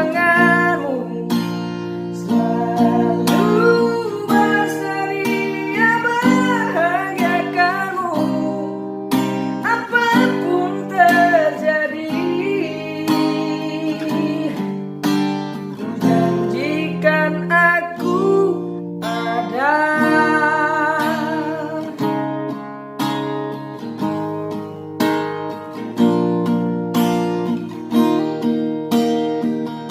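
A solo voice singing with vibrato over a strummed acoustic guitar. The voice is dry, with no added effects.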